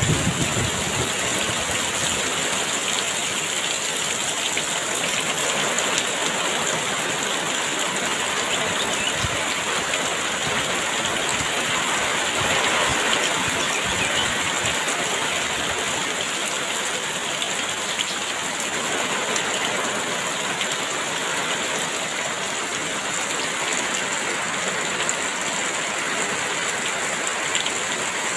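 Heavy rain falling in a steady downpour, an even hiss of many drops with a constant high-pitched band running above it.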